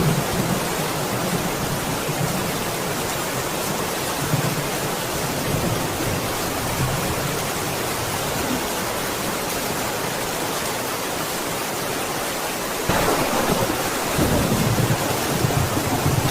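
Steady heavy rain with low rolling thunder rumbling in and out. About thirteen seconds in the rain grows louder and the thunder rumbles again.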